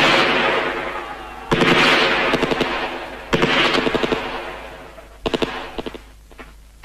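Gunfire on a war-film soundtrack: three loud bursts of machine-gun fire, each starting sharply and fading away in a long echo, about a second and a half to two seconds apart, followed by a few quieter scattered shots.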